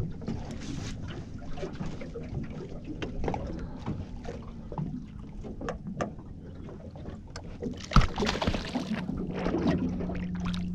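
Scattered knocks and clicks of a freshly caught fish and fishing gear being handled aboard a small boat, with one sharp thump about eight seconds in. A steady low hum comes in shortly after the thump.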